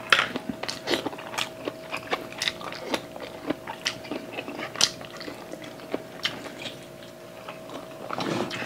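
Chewing, biting and lip-smacking, close to a lapel microphone, as two people eat braised chicken adobo with their hands: a string of short, irregular wet clicks and smacks over a faint steady hum, a little louder near the end.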